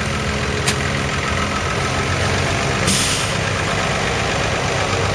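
New Holland T7.235 tractor's 6.7-litre six-cylinder diesel engine running steadily at idle. There is a short click just under a second in and a brief burst of hiss about three seconds in.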